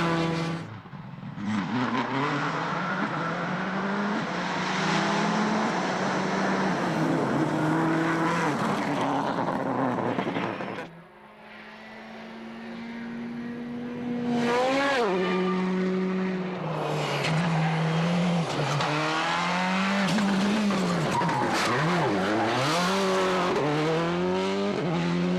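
World Rally Car's turbocharged four-cylinder engine running hard, its pitch climbing and dropping through the gear changes, with tyre and skid noise. The sound drops away sharply about eleven seconds in and builds back up over the next few seconds before the car revs on.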